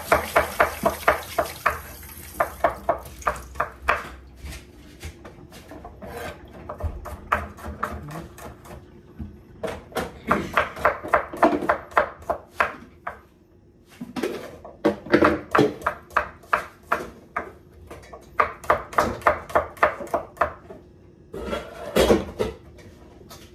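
Kitchen knife chopping vegetables on a wooden cutting board, in runs of quick, even strokes, about four a second, broken by short pauses.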